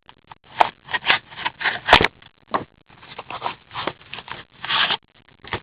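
Trading card packs being handled and opened: the wrappers rustle and tear, and the cards scrape against each other, with a sharp click about two seconds in.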